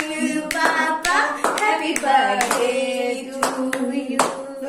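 People singing a birthday song with hand claps at an uneven pace over the voices.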